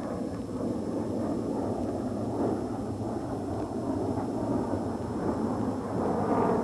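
Jet fighter engine running steadily in flight: a constant, deep noise with no distinct pitch.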